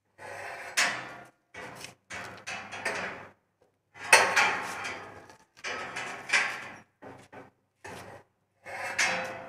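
Steel rolling shutter curtain rattling as it is pushed up and pulled by hand and with a hooked rod, its slats coiling onto the drum. It comes in repeated bursts about a second long, with short gaps between.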